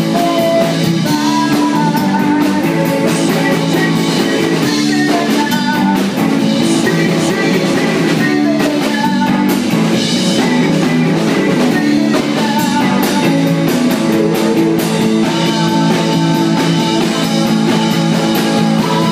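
Live funk band playing loud, with electric guitar over a steady drum-kit beat, thin in the deep bass.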